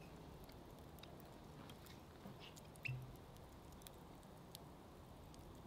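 Near silence with faint, scattered crackles and ticks from a wood fire's embers heating a cast iron Dutch oven, and one slightly louder short soft sound about three seconds in.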